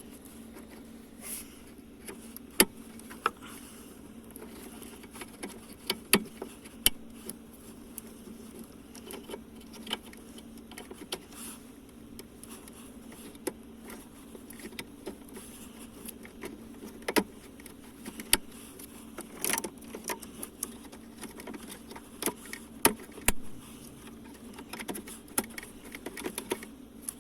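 Scattered clicks, taps and light clattering as the engine control unit (DME) is fitted back into its housing and its wiring connectors are pushed on, over a steady low hum.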